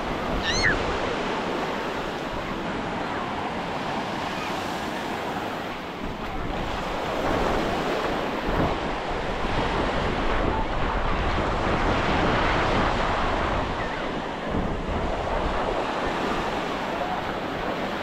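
Ocean surf washing onto the beach, a steady rush that swells louder in the middle, with wind buffeting the microphone. A brief high chirp sounds about half a second in.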